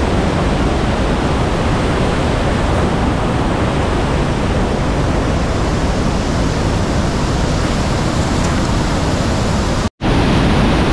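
Whitewater rapids of the Ötz River rushing steadily and loudly, a dense unbroken wash of water noise. It breaks off for an instant near the end and comes straight back.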